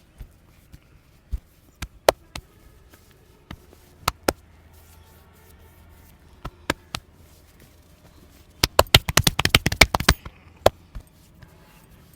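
Hands slapping and tapping during a head massage: single sharp slaps every second or so, then a rapid flurry of slaps about nine seconds in that lasts about a second and a half.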